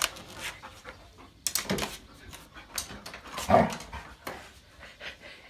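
A dog making two short whining sounds, with scuffing and clicking noises around them.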